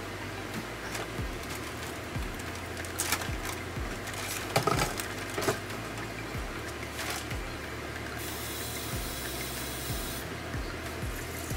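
Handling sounds at a kitchen stove and counter: scattered light clicks and knocks, loudest in a cluster a few seconds in, over a low steady hum. About eight seconds in a steady hiss starts and then cuts off about two seconds later.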